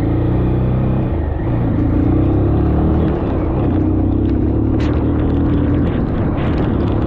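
Motorcycle engine running steadily under way, its pitch dipping briefly about a second in and then holding, over a steady hiss of wind and wet road.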